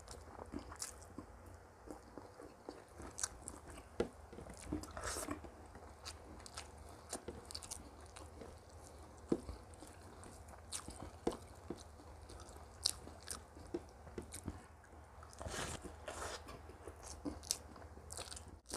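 A person chewing and biting food close to the microphone, with many short crunches and clicks at an irregular pace over a low steady hum.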